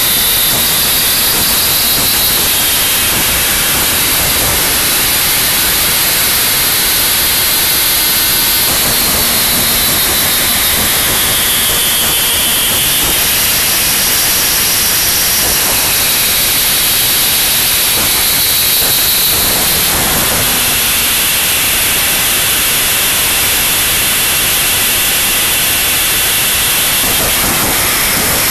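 Noise-music track: a loud, unbroken wall of dense static, with faint hissing bands in the upper range that shift every few seconds.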